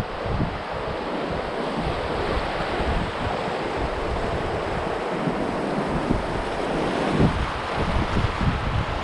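Steady rush of river water through shallow rapids, mixed with wind buffeting the microphone in gusty low rumbles.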